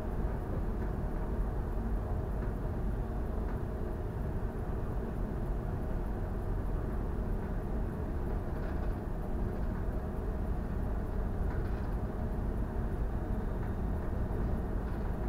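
Steady low rumble of a bulk carrier under way, with wind buffeting the microphone over a faint, even machinery hum.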